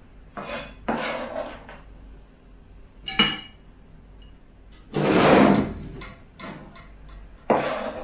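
A kitchen knife and cut carrot being handled on a plastic cutting board and a plate: a few separate scrapes and knocks, with a short ringing clink about three seconds in and the longest, loudest scrape about five seconds in.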